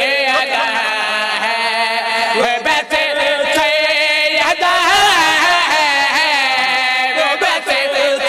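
Men chanting a devotional verse in drawn-out, wavering held notes that slide up and down in pitch, amplified through microphones, with a brief break about three seconds in.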